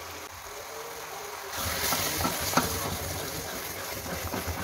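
Tomato curry sizzling and bubbling in a frying pan with beaten egg just poured in. About one and a half seconds in it grows louder as a spatula starts stirring, with a few light scrapes and taps of the spatula against the pan.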